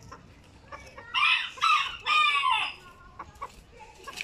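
A Barbu d'Anvers bantam rooster crowing once, about a second in: three loud phrases in about a second and a half, the last one longest and falling in pitch at its end.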